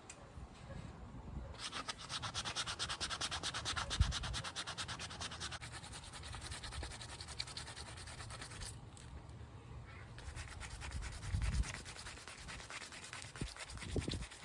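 Sandpaper rubbing over primed 3D-printed plastic helmet parts in quick, even back-and-forth strokes. The sanding starts about a second and a half in and pauses briefly about two-thirds of the way through.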